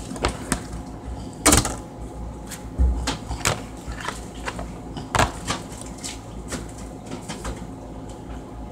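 Plastic rotisserie chicken container being pried open by hand: irregular crackles and clicks of the stiff clear lid and black base, with sharper snaps about one and a half seconds and five seconds in.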